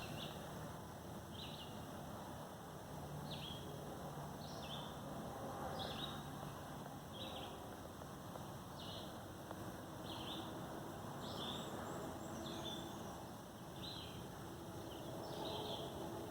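A songbird singing short, repeated phrases, about one a second, faint against the open-air background.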